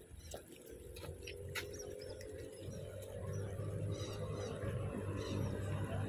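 Smooth-coated otters giving faint, short high chirps as they swim off. Under them runs a low steady hum that grows steadily louder.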